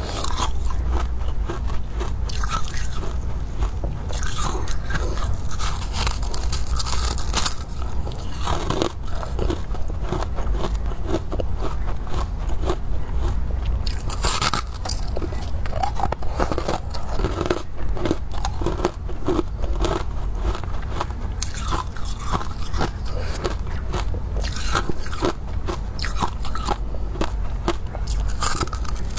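Close-miked biting and chewing of crunchy freezer frost, crisp crunches following one another without a break, over a steady low rumble.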